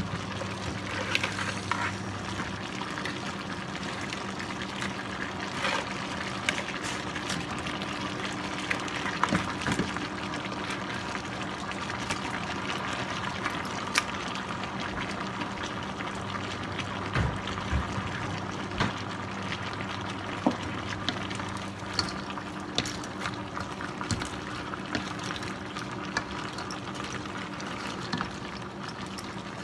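Coconut-milk sauce simmering and bubbling in a wok, with scattered clicks and knocks as crab shells and a wooden spatula hit the pan. A steady low hum runs underneath.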